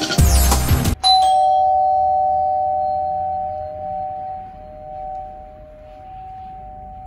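Apartment doorbell chiming: two held tones sound together about a second in and fade away slowly over several seconds. Just before the chime there is a brief loud rush of noise.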